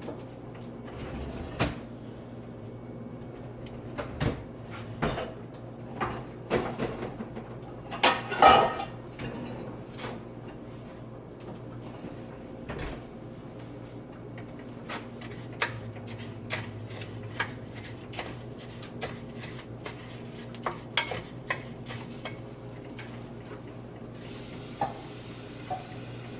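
A spoon scraping and knocking against a pot while stirring dry rice that is frying in oil to turn golden brown: scattered clicks, with a longer scrape about eight seconds in. A low steady hum runs underneath.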